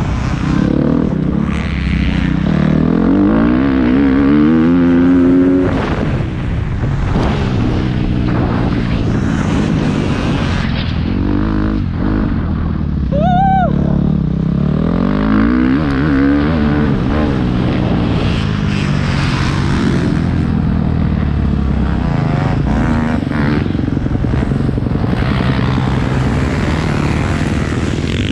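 Motocross bike engine revving up and down as it is ridden hard around a dirt track, heard close up from a camera mounted on the bike.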